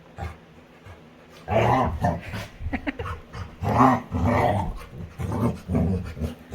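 Labrador retriever making a run of low, pitched play noises while playing, starting about a second and a half in.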